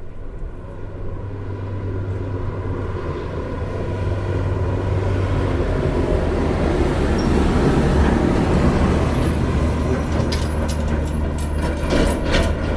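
A vehicle engine running with a steady low hum, growing louder over the first several seconds, with a run of sharp clicks and knocks near the end.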